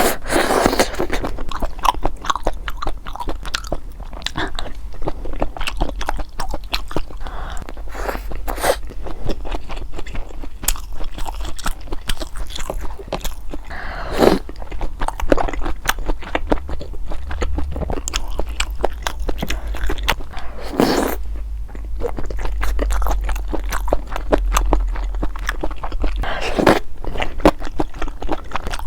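Close-miked eating of boneless chicken feet in broth (dakbal): a continuous run of biting and chewing with wet smacks and clicks, and a few louder bites along the way.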